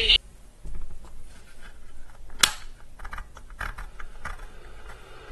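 Clicks and knocks of a small plastic pocket AM radio's case being closed and handled: one sharp click a little over two seconds in, then several lighter clicks and taps.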